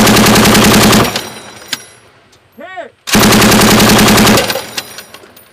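M240 medium machine gun, a belt-fed 7.62 mm gun, firing two bursts of rapid automatic fire. The first burst is already going and stops about a second in; the second starts about three seconds in and lasts about a second and a half. A voice shouts "Hit" between the bursts.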